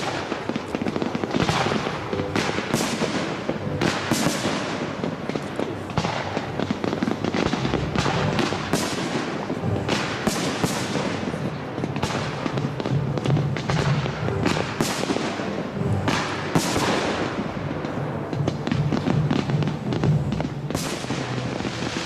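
Large fireworks display: aerial shells bursting in quick succession, one or two bangs a second, with crackling between them.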